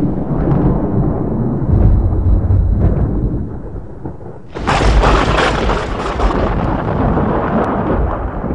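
Thunder rumbling, with a sudden loud crack about four and a half seconds in that then rolls on and fades.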